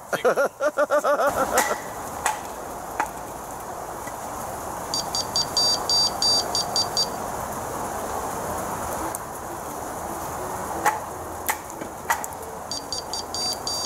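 Large knife splitting a short log on a chopping stump: three sharp knocks about half a second apart as the blade is driven into the wood, then another three near the end. Under them runs a steady hiss.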